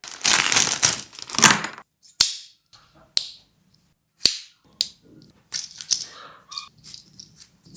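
Crinkly rustling for about a second and a half, followed by four sharp clicks roughly a second apart and softer handling noises.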